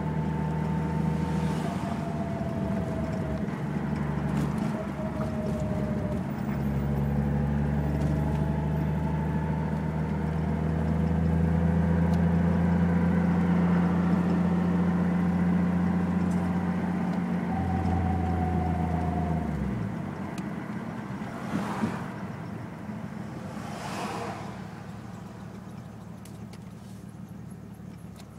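A steady low mechanical drone, like a running motor, with a faint wavering whine above it. It cuts off suddenly about two-thirds of the way through, and two short whooshes follow.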